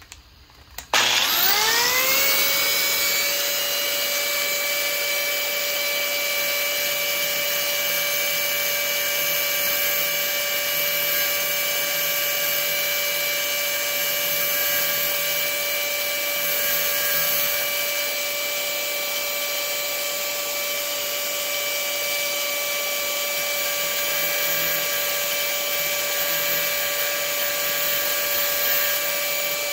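Electric grinding tool switched on about a second in, its whine rising in pitch as it spins up, then running steadily at a high pitch while grinding down a metal screw-in arrow field point.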